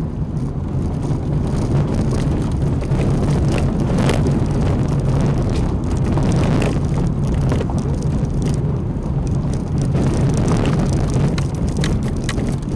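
Renault Oroch pickup climbing a rough dirt road, heard from inside the cab: a steady engine drone with a low hum and tyre rumble, broken by scattered knocks and rattles from the bumpy track.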